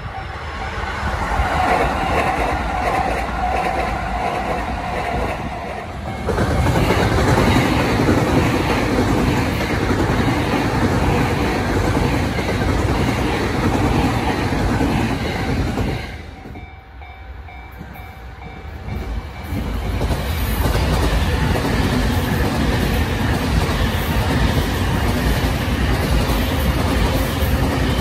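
Electric commuter trains of the JR Chūō–Sōbu local line passing close by, wheels clattering over the rail joints. The noise builds for several seconds, drops to a lull a little past halfway, then a second train passes until near the end.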